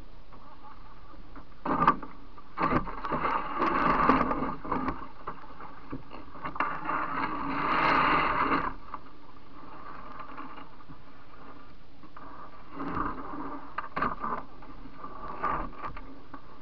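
Canoe hull knocking and scraping on river gravel as it runs through shallows into the bank: sharp knocks about two seconds in, longer scraping stretches a few seconds in and again around eight seconds, then a cluster of knocks near the end.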